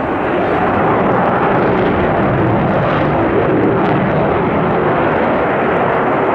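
Lockheed Martin F-22 Raptor's twin turbofan jet engines roaring overhead, a loud steady rushing roar that swells a little in the first second.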